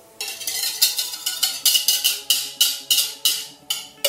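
A wire whisk scraping and knocking against the inside of a mixing bowl, about three strikes a second, as the last of a beaten egg mixture is poured out.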